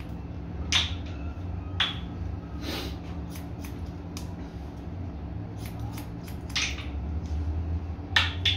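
Barber's scissors snipping through long wet hair: short, sharp snips at uneven spacing, some single and some in quick runs, over a steady low hum.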